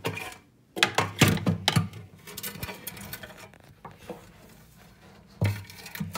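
Stainless wire-mesh scoop scraping and scooping loose dirt substrate inside a glass reptile tank, with sharp scrapes and rattles, loudest about a second in and again near the end.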